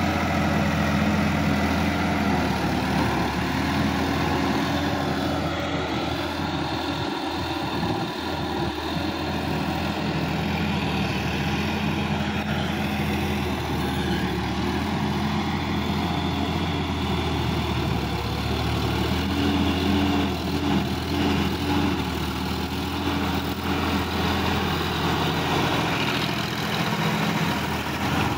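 Sonalika DI-50 RX tractor's diesel engine running steadily under load while pulling a rotary tiller through wet paddy mud.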